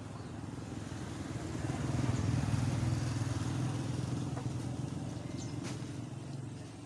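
A small engine of a passing vehicle, growing louder to a peak about two and a half seconds in and then fading away.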